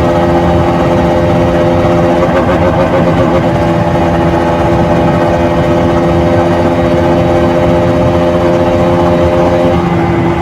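KTM RC 200 motorcycle's single-cylinder engine and stock exhaust running at a steady engine speed, the pitch holding level throughout.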